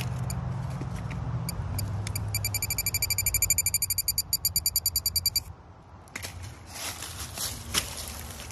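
Metal-detecting pinpointer beeping rapidly, about ten high-pitched beeps a second, for three seconds or so as its tip is pushed into a crack in tree bark: the signal that there is metal inside the trunk. The beeping cuts off, and scraping and crackling of bark follow.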